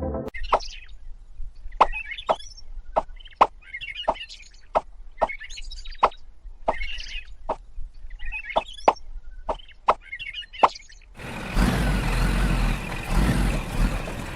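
A series of sharp, hard taps, irregular at roughly one or two a second. From about eleven seconds in, a steady rushing noise takes over.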